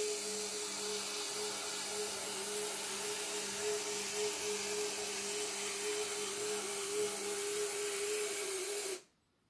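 Small electric motors of a model excavator and model field-railway layout running with a steady whine over a hiss, as the model narrow-gauge train travels along its track. The sound cuts off abruptly near the end.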